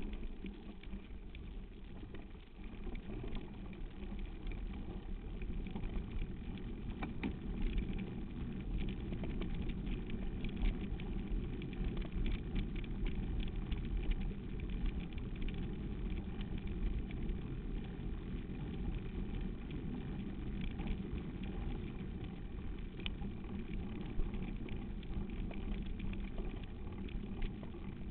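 Steady low rumble of wind buffeting and rough dirt track heard through a bike-mounted camera on a moving mountain bike, with scattered small rattles and clicks from the mount and bike. It grows louder about two seconds in as the bike picks up speed.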